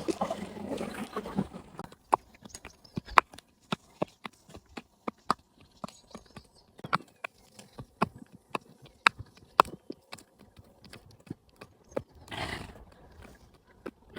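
A pony's hooves clip-clopping at a walk on hard ground: sharp, uneven hoofbeats about twice a second. There is a short rush of noise at the very start and another near the end.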